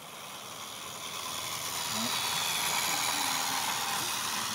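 A small clockwork toy locomotive running along garden railway track. Its wound spring motor and wheels make a steady whirring hiss that grows louder over the first couple of seconds as it comes close.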